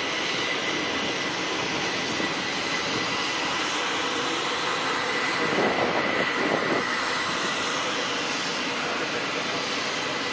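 Steady jet airliner noise on the ramp: a rush of air with a faint high whine running under it, swelling briefly a little past the middle.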